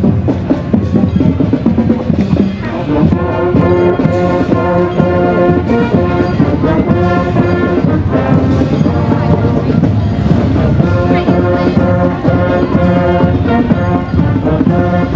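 High school marching band playing: drums keep a beat, and the brass section comes in with held chords about three seconds in.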